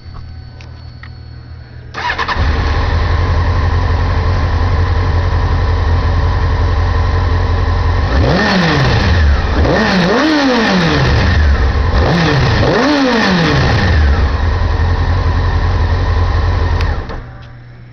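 2002 Honda CBR600F4i's fuel-injected inline-four starting about two seconds in: it fires right up and settles to a steady idle. Midway it is given four short throttle blips, the pitch rising and falling each time, in two pairs, then idles again and is switched off near the end.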